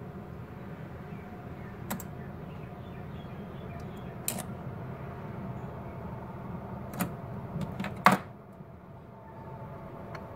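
Toy magnets being handled on a tabletop: a handful of sharp clicks and knocks, spaced unevenly, the loudest about eight seconds in, over a steady low hum.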